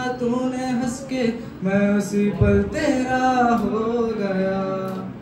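A man singing, holding long notes that bend in pitch, with a brief low thump about halfway through.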